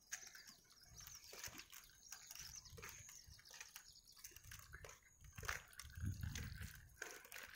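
Quiet street ambience heard while walking with a handheld phone: faint footsteps and handling knocks, with a few faint high chirps in the first second or so and some low rumbling around six seconds in.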